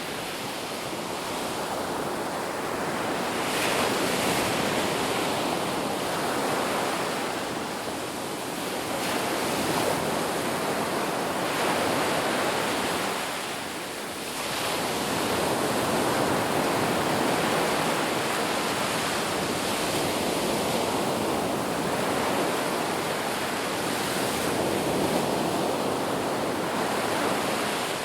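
Ocean surf: a continuous wash of waves that slowly swells and eases, with a brief lull about halfway through.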